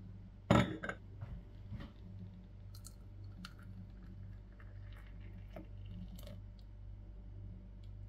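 A porcelain coffee cup clinks sharply against its saucer about half a second in, with a few lighter clinks after it. Then Turkish coffee is poured into the cup, heard as faint scattered ticks and a light trickle over a low steady hum.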